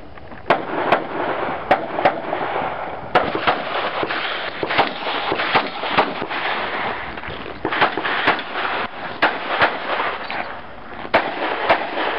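Handgun shots fired in quick pairs, two to a target, with short pauses between pairs as the shooter moves through a USPSA stage. About fifteen shots in all, each followed by an echo.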